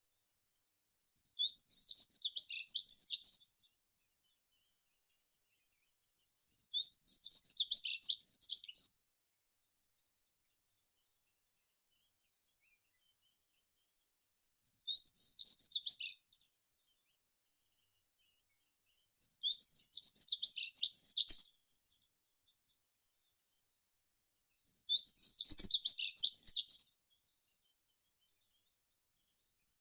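A small songbird singing: five high-pitched song phrases of about two seconds each, separated by pauses of several seconds.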